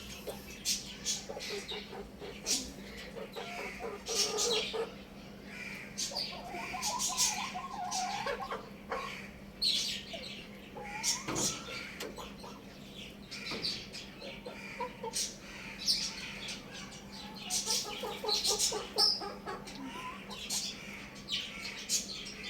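Chickens clucking, with many short high-pitched chirps and calls scattered throughout.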